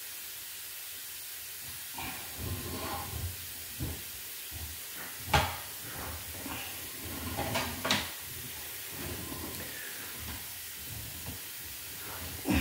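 Sewer inspection camera's push cable being pulled back out of the line: scattered knocks and rattles, the sharpest about five and a half seconds in, over a steady hiss.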